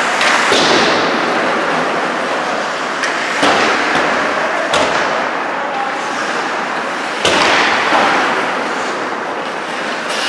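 Ice hockey play in an indoor rink: about five sharp, echoing cracks of stick and puck striking the ice and boards, over the steady scraping hiss of skates on ice.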